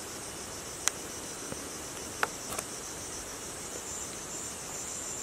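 A steady chorus of insects, a high pulsing trill, with three short sharp clicks about one, two and two and a half seconds in.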